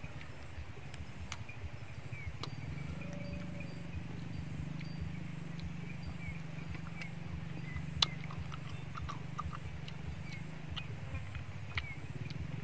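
Small clicks and taps of steamed snail shells being handled and picked out with a toothpick, with one sharper click about eight seconds in. Faint short chirps repeat in the background over a steady low rumble.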